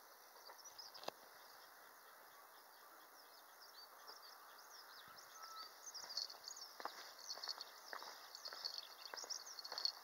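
Faint chorus of small birds chirping at a high pitch, the calls growing denser from about halfway through, with a few footsteps of someone walking.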